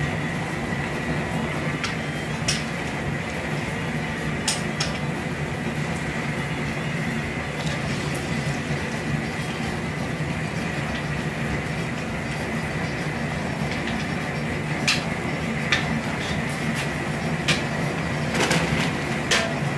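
Steady rushing noise of a pot at a hard boil over its gas burner, with a few sharp clanks as the perforated aluminium basket and wooden paddle knock against the pot while the basket is lifted out.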